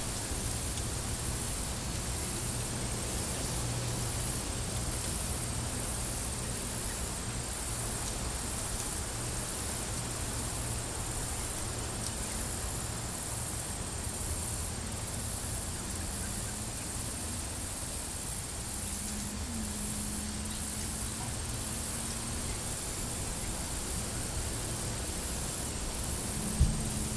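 Outdoor nature ambience: a steady hiss with insects pulsing high and evenly. A faint low drone comes in around the middle, and there is a single thump near the end.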